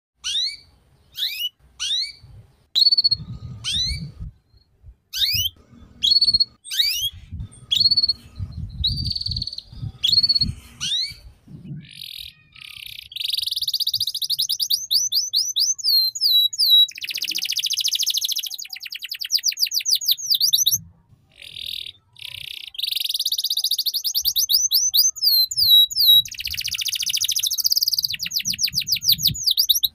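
Domestic canary singing. It gives separate rising chirps about once or twice a second for the first twelve seconds or so, then long fast trills and rolls in the 'ngeriwik' style, broken by short pauses.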